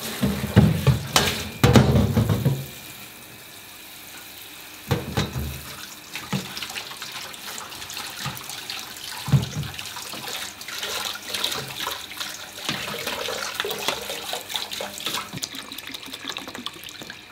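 Kitchen tap running into a colander of noodles set in a steel bowl while hands rinse and stir the noodles in the water. Heavy clunks of the bowl and colander being handled in the first couple of seconds, and a couple of single knocks later.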